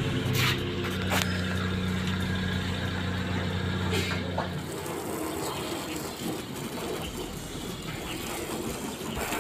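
Nissan sedan's engine idling steadily, then switched off about four and a half seconds in. After it, a fainter hiss of water spraying from a garden hose onto the car.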